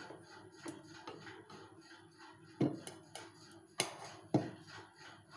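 Milk boiling in a stainless steel pot on a gas burner: a faint, rapid ticking of bubbles, broken by a few sharper knocks on the pot between about two and a half and four and a half seconds in.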